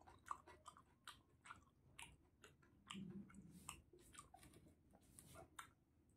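Faint close-up chewing: a string of short, wet mouth clicks and smacks as a person eats with his fingers.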